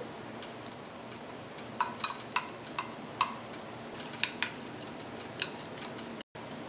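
A thin wooden stick clinking against the sides of a glass measuring cup while stirring food colouring into pancake batter: about eight or nine sharp, irregular clinks, each with a short ring.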